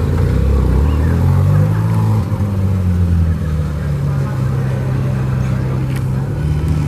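Ferrari 458 Speciale's V8 pulling away at low revs. The engine note rises briefly about a second in, then settles to a steady low drone as the car creeps off.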